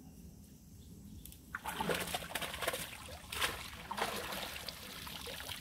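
Water splashing and streaming off a cast net as it is hauled up out of a pond, starting about a second and a half in and coming in several surges.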